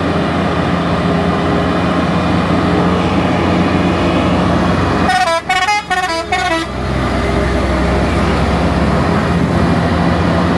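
UD Quester trucks' heavy diesel engines running under load as the trucks crawl slowly uphill, a steady low drone. About five seconds in, a truck's telolet horn plays a quick run of stepping musical notes for about a second and a half.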